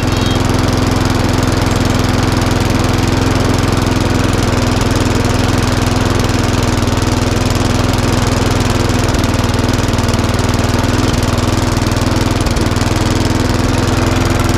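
A Mountfield rotary lawnmower's small Briggs & Stratton engine running steadily at a constant speed.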